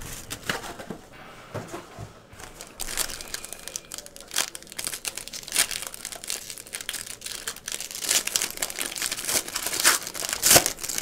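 Silver foil wrapper of a Panini Spectra basketball card pack crinkling and tearing as it is opened by hand. The irregular crackling gets louder near the end.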